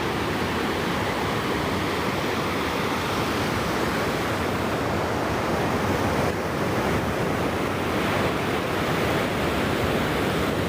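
Ocean surf washing onto the beach: a steady, even rush of waves.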